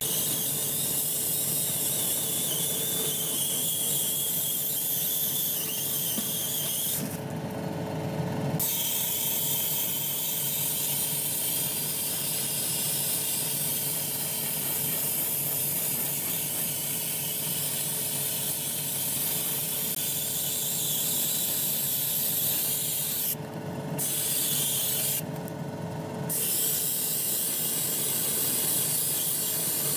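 Gravity-feed airbrush spraying paint with a steady hiss, stopping briefly about seven seconds in and twice near the end, over a steady mechanical hum.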